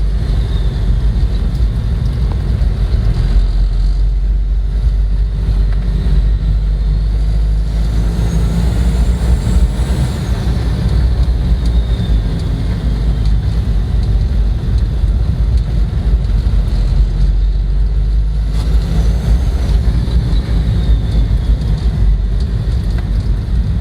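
Isuzu Trooper's 3.1-litre 4JG2 four-cylinder turbo-diesel engine running, with the turbocharger's high whistle rising in pitch and then falling away, once about a third of the way in and again about four-fifths of the way in.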